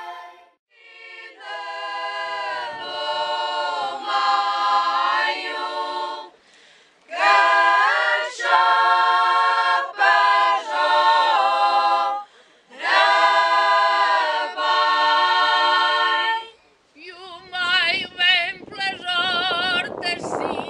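Traditional folk song sung a cappella by a choir of mostly female voices, in long held phrases with short breaths between. Near the end a new passage starts, sung with a strong wavering vibrato.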